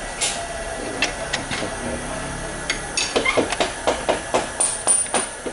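Sharp hammer knocks on metal: a few single blows, then from about halfway a quick run of knocks, about three or four a second.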